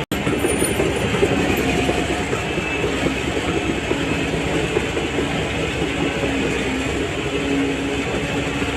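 Shantui DH17C3 crawler bulldozer working, its diesel engine running steadily with the rattle of its steel tracks.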